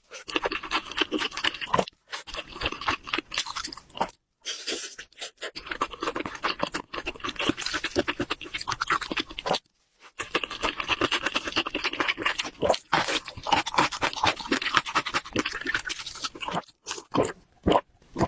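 Close-miked chewing and biting of noodles and mandu dumplings: a dense run of crunchy, wet mouth sounds, cut off abruptly a few times.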